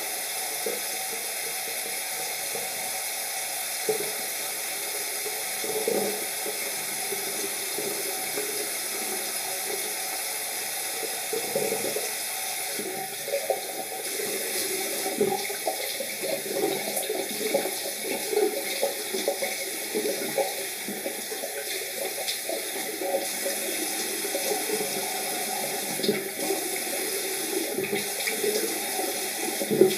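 A tap running steadily into a sink, with water splashing as hands scoop it over the face to rinse off foaming cleanser. The splashing comes in irregular bursts and is busiest in the second half.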